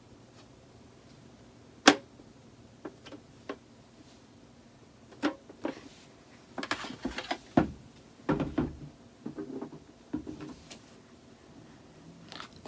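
Clicks and knocks of a small plastic pet tank with a vented lid being handled: one sharp click about two seconds in, then scattered taps and rattles, with a few dull thumps in the middle.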